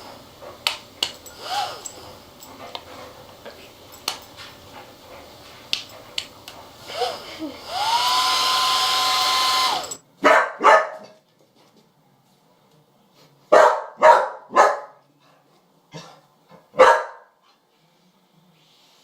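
A dog whimpering in short rising-and-falling whines among small clicks, then a hair dryer blowing for about two seconds before it cuts off abruptly. After that, a dog barks about seven times, sharply, in twos and threes with pauses between.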